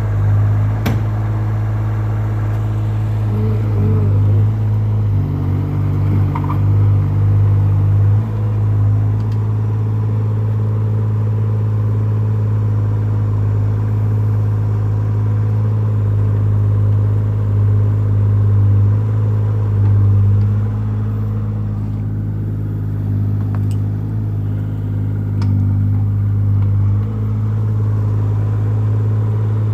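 JCB 8018 mini excavator's diesel engine running steadily. Its note swells and dips with the hydraulic load as the boom digs and the machine shifts on its tracks, with a few short knocks of the bucket and steel.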